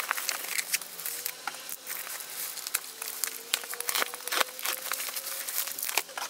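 Plastic bubble wrap crinkling and crackling as it is pulled off a cardboard box, a dense run of quick, irregular clicks.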